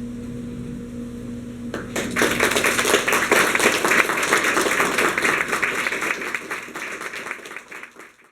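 Audience applauding after the last poem: dense clapping starts about two seconds in, then fades and cuts off at the end.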